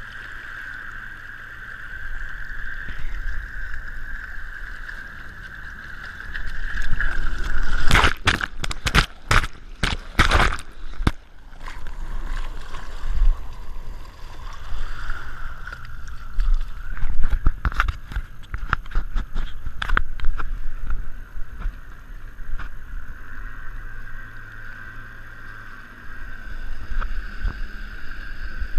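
Bass boat's outboard motor running, a steady hum, with water splashing and lapping along the hull beside the microphone. About eight seconds in, a couple of seconds of loud splashes and knocks, and a scatter of lighter knocks and clicks a little later.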